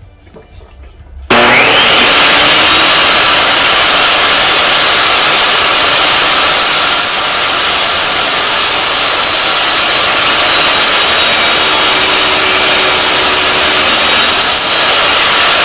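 Ryobi table saw starting up about a second in, its motor whine rising as the blade comes up to speed, then running steadily and loudly while wood strips are fed through it to cut a groove.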